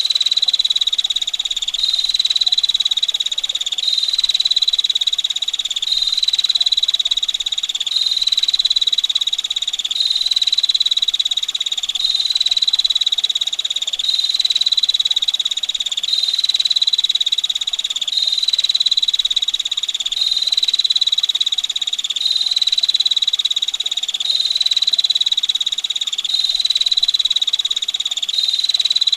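Female prenjak (prinia) giving its rapid, rasping 'ngetir' trill without a break, in repeated phrases of about two seconds, over a faint wash of running water.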